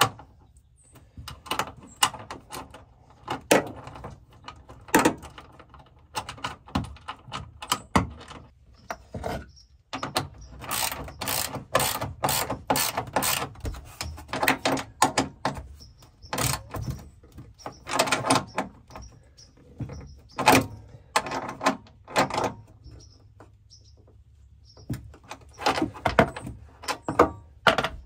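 Ratchet and half-inch socket tightening the nut on a 5/16 bolt that holds a chassis ground-wire lug to the van's sheet-metal body. It makes spells of ratchet clicks, several a second, mixed with clinks of the wrench and socket on metal.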